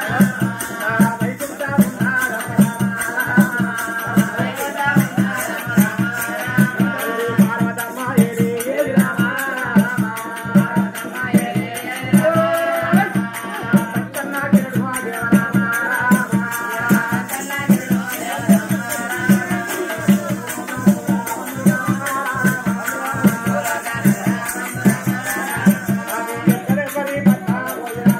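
Oggu katha folk music: singing over a steady, regular drum beat with jingling rattle-like percussion.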